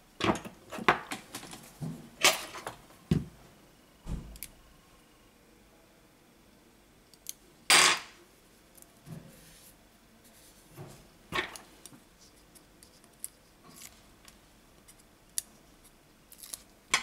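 Double-sided 3M tape and a smartphone battery being handled: scattered light clicks and taps, with a few short sharp rasps, the loudest about 8 seconds in and others near 2 and 11 seconds in.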